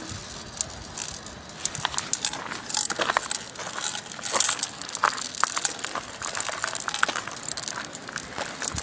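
Glass marbles rolling and clattering through channels carved inside a sandstone block: an irregular run of small, sharp clicks and knocks, busiest in the middle.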